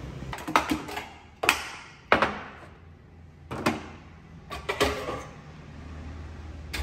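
Kitchen drawers being opened and metal cookware clanking as a pan is lifted out of a drawer of pots and lids: a string of sharp knocks and clatters, the loudest about two seconds in.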